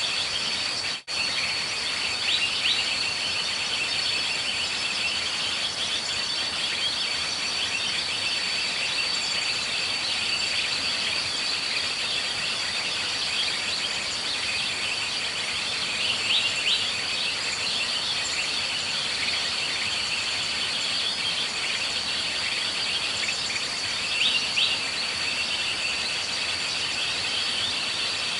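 A steady high, thin insect drone with busy chirping beneath it, broken by a few short, sharp bird calls about halfway through and again near the end.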